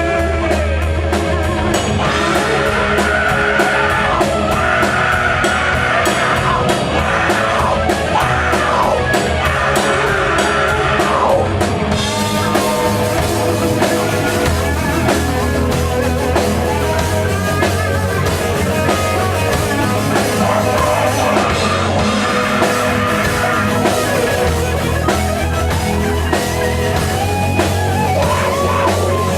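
Rock band playing live, an instrumental passage with drum kit and electric guitars. A high lead melody slides up and down through the first ten seconds or so.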